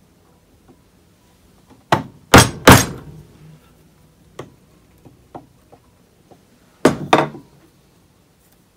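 Bench chisel being knocked into wood, chopping out a butt-hinge mortise: three sharp knocks about two seconds in and two more about seven seconds in, with lighter taps between.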